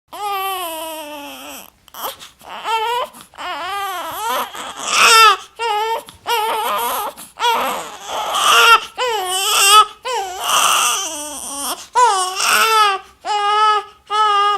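Infant crying: a string of high-pitched wails, most about a second long, with short breaths between them. Some cries turn raspy and strained, and the last few come shorter and quicker.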